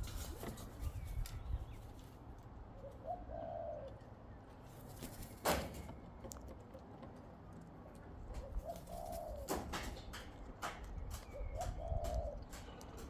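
Sulphur-crested cockatoos feeding on seed: scattered sharp clicks and cracks, with one loud crack about five and a half seconds in. A bird gives a soft, low call three times, a few seconds apart.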